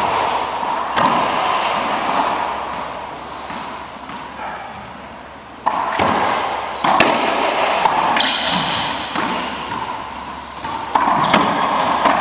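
A racquetball striking the racquet, floor and walls of an enclosed court: sharp cracks, each ringing on in the court's echo. A couple of hits come near the start, then a quieter gap, and from about six seconds in the hits come one after another as play resumes.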